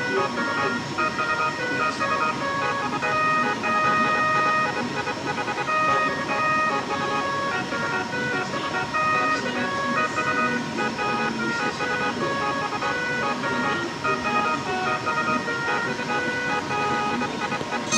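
Multi-tone 'telolet' musical horn playing a tune of held notes that keep stepping to new pitches, over a steady underlying tone.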